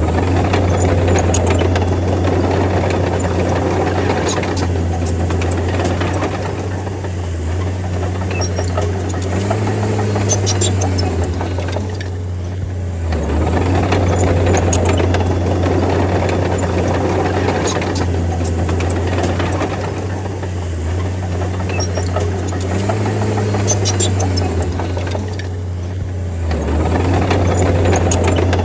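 Crawler bulldozer's diesel engine working under load, its steady drone swelling and easing in a slow cycle of about twelve seconds as the blade pushes, with a brief rise in pitch twice. Scattered sharp clanks sound over the engine.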